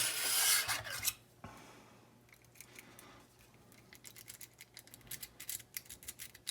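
A lock pick working in the pin tumblers of an ERA rim cylinder. It starts with a scraping rasp for about a second. After a quiet spell come quick, light metallic clicks as the pick works the pins, growing busier toward the end.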